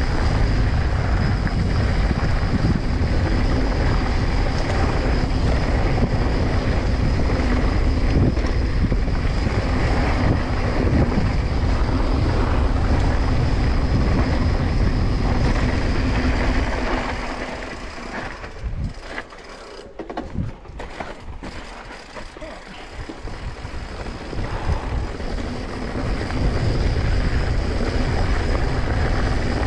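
Wind buffeting the action-camera microphone and tyres rolling over rocky dirt singletrack as a mountain bike rides downhill at speed. The noise falls away for several seconds a little past halfway as the bike slows, then comes back up.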